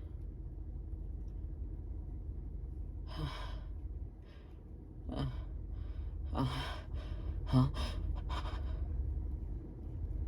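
Half a dozen short, sharp gasping in-breaths spread over several seconds, some with a slight voiced catch: the build-up to a sneeze.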